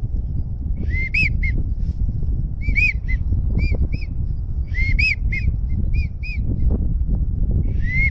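Wigeon whistles: short arched whistled notes in groups of three or four, the middle note highest, repeated about every two seconds. Under them runs a steady low wind rumble on the microphone.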